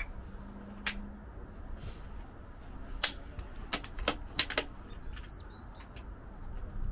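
Bolt-action precision rifle being worked by hand: sharp metallic clicks of the bolt and trigger, a single click about a second in, then several close together between about three and four and a half seconds in. No shot is fired.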